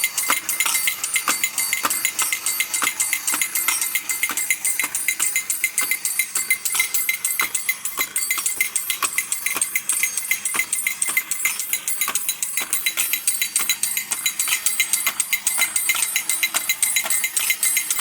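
Battery-operated Alps Dandy Dog tin toy drummer running: its drumsticks beat rapidly on the tin drum while the cymbal clinks, making a steady, fast metallic clatter with a high ring over it.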